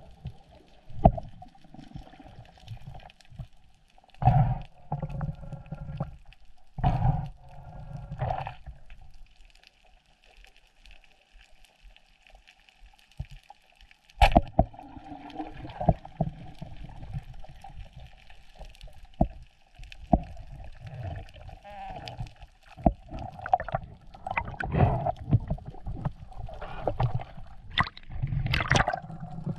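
Underwater camera sound on a spearfishing dive: muffled water and bubble gurgling in irregular bursts, with one sharp snap about halfway through as the speargun fires. Near the end, busier splashing as the diver reaches the surface.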